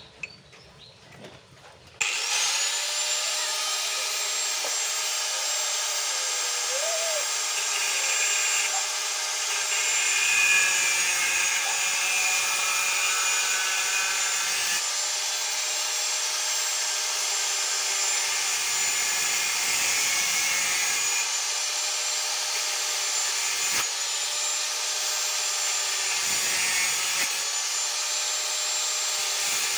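Angle grinder switched on about two seconds in and running steadily, its disc cutting into a metal food can. A high motor whine over a hiss of grinding, with the pitch dipping slightly now and then.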